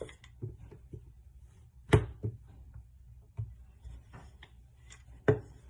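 Wooden rolling pin rolling out dough on a stone countertop: soft bumps and rubbing, with two sharp knocks of the pin against the counter, one about two seconds in and one near the end.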